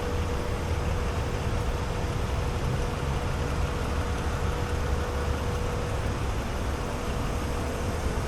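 Steady low mechanical rumble with a constant faint hum, unchanging throughout.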